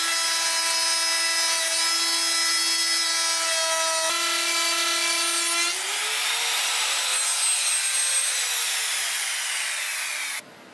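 Electric trim router cutting a slot in plywood: a steady high-pitched motor whine that rises in pitch about six seconds in, then cuts off suddenly near the end.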